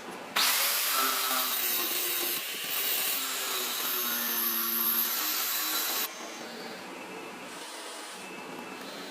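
A power grinder working the steel of a forged sword blade: a loud, harsh, steady grinding that starts abruptly about half a second in and cuts off after about six seconds.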